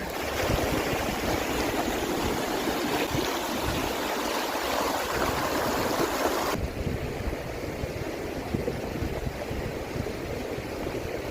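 Mountain river rushing steadily. The higher part of the hiss thins out suddenly about two-thirds of the way through.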